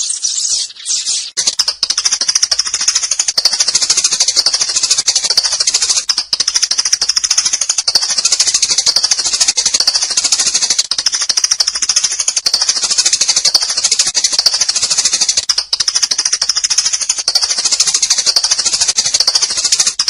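Sparrows chirping in a rapid, dense, unbroken chatter of high calls; the separate chirps at the start thicken into a continuous chorus about a second and a half in.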